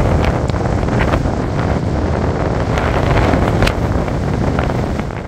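Strong wind buffeting the microphone: a loud, steady low rumble with scattered crackles from the gusts.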